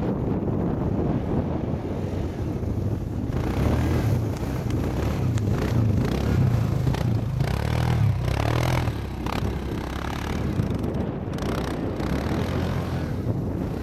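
ATV engine running as the quad drives through snow, its engine speed varying and louder through the middle stretch.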